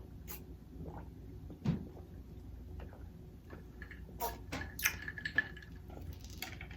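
Light clicks and knocks of drink containers being handled and drunk from, with one louder knock about two seconds in.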